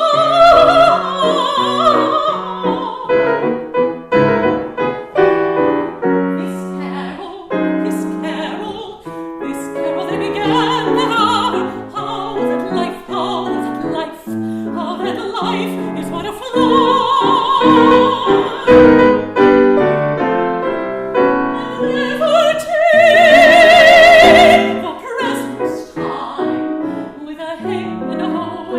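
Classical art song: a high female voice sings long, held notes with a wide vibrato over a busy piano accompaniment, with the loudest sustained high note just past two-thirds of the way through.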